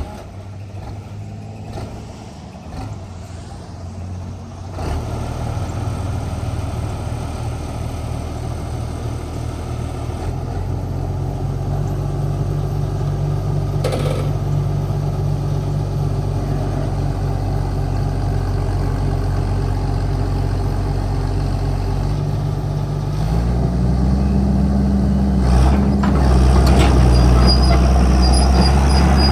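Diesel engine of a Hitachi UH083 LC hydraulic excavator running steadily, its speed and loudness raised in steps about five, eleven and twenty-three seconds in, with the pitch climbing near the end.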